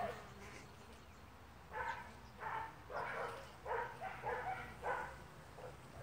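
A dog barking in a run of about six quick barks, starting nearly two seconds in, over the faint steady low hum of the honey bee colony at the nest hole.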